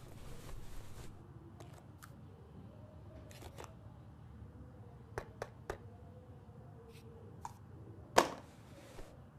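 A series of small, sharp clicks from something being handled: scattered single clicks, three in quick succession a little past five seconds in, and a louder, sharper click near the end. A faint low hum runs underneath.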